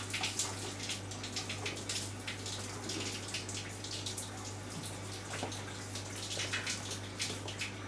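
Water running from a kitchen tap into a steel sink, with irregular small splashes, over a steady low hum.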